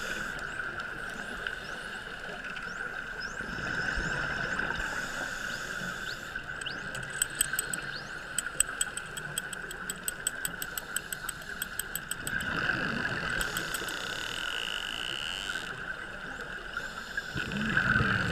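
Bottlenose dolphins underwater, giving many short rising whistles, with a rapid, even train of clicks for a few seconds in the middle, over a steady hum.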